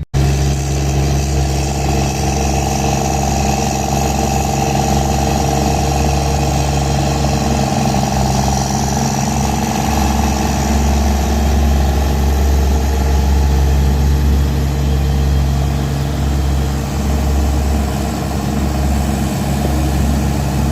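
Truck engine running steadily, a low, even hum that stays level throughout, as the truck moves the log load through the mill yard.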